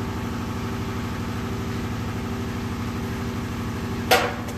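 Steady, engine-like machine hum running in the background, with one sharp knock about four seconds in.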